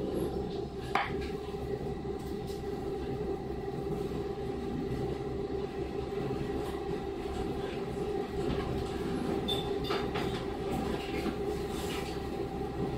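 KiHa 40 series diesel railcar standing at a station stop, heard from inside the car: a steady idling drone with a couple of faint knocks.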